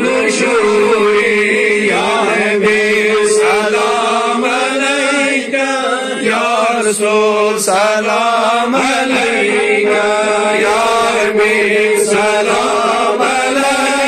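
Men chanting an Islamic devotional salaam: a lead voice sings a wavering, ornamented melody in long held phrases, with another voice holding a steady note beneath it.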